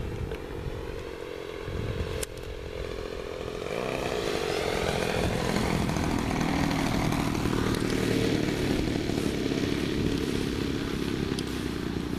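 Engine of a Gary Ward MX2 radio-controlled aerobatic plane running steadily. It grows louder about four seconds in as the plane comes in low over the field.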